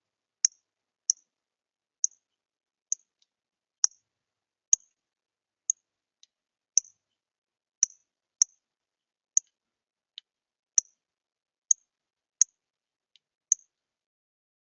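A bird giving short, sharp, high chip notes over and over, about one a second at an uneven pace, stopping near the end.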